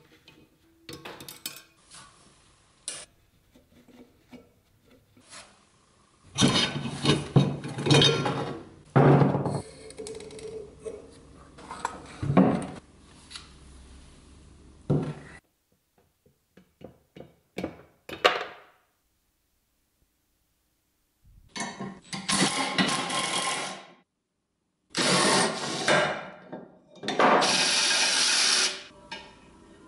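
Workshop teardown sounds: knocks, clanks and scraping of metal grinder parts handled on a wooden workbench. Near the end, a cordless impact driver runs in bursts on the bolts of the bench grinder's cast-iron base.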